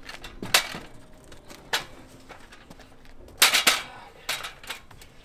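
Metal stepladder being set up and climbed: several sharp metallic clanks and knocks, the loudest cluster about three and a half seconds in.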